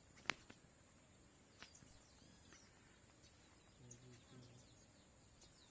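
Quiet waterside ambience: a steady high-pitched insect drone with scattered faint bird chirps, and a single sharp click about a quarter of a second in.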